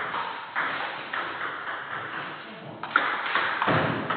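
Table tennis rally: the plastic ball clicking sharply off the bats and bouncing on the table, about two hits a second, each with a short echo. The sharpest hit comes about three seconds in.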